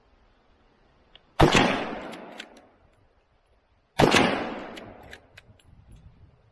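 Two rifle shots from a Winchester Model 94 lever-action in .30-30, about two and a half seconds apart, each trailing off over about a second, with a few sharp clicks of the lever being worked after each shot.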